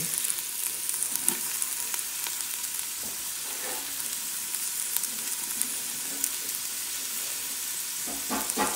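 Sliced white onion and green chilies sizzling in hot oil in a stainless steel pot as they fry toward golden brown. A steady hiss is broken by scattered sharp pops and crackles, one louder about a second in.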